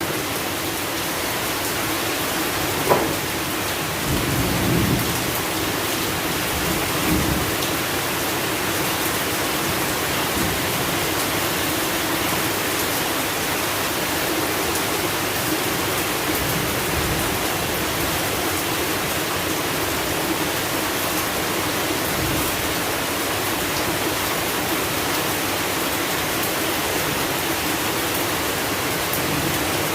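Steady rain falling. About three seconds in there is one sharp crack, followed by two short low rumbles.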